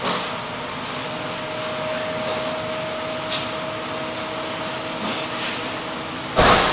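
Steady fan noise of commercial kitchen ventilation, with a faint steady tone from about a second in to about five seconds. A brief loud sudden noise comes just before the end.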